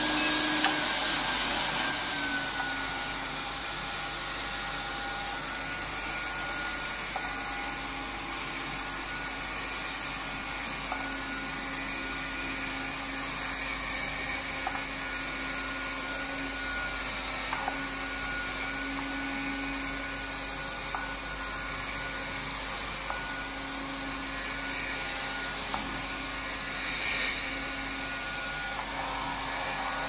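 Window-cleaning robot's suction fan running with a steady whine, holding the robot to the glass as it crawls across it. The whine dips slightly in pitch about two seconds in, and a few faint clicks come later on.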